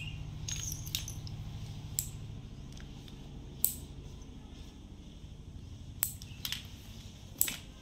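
Nail clippers snipping a baby monkey's toenails: about seven sharp, separate clicks, irregularly spaced a second or more apart.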